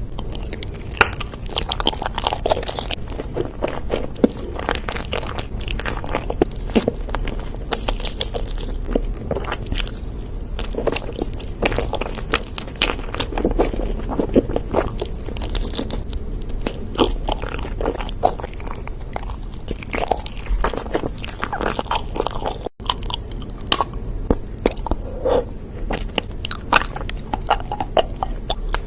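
Close-miked ASMR eating: a person biting into and chewing crunchy food, a dense stream of sharp crunches and clicks.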